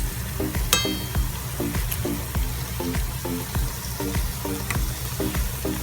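Bananas and sugar frying in hot cooking oil, a steady sizzle, with a single ringing metal clink, a utensil against the pan, about a second in as the bananas are turned.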